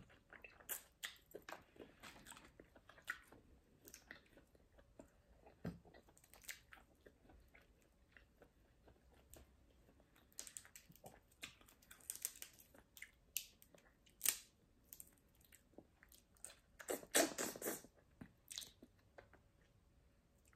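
Close-up chewing and biting on blue crab meat, with many short sharp cracks and crackles of crab shell being pulled apart by hand; a louder cluster of crackling comes about three-quarters of the way in.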